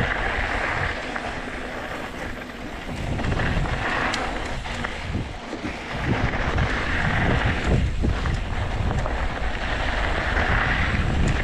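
Wind buffeting the microphone: a continuous low rumbling rush that swells and fades, with a hiss and scattered small clicks and rattles over it.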